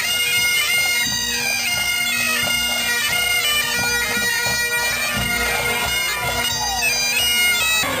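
A pipe band's Great Highland bagpipes playing a tune over their steady drones. The piping cuts off abruptly near the end.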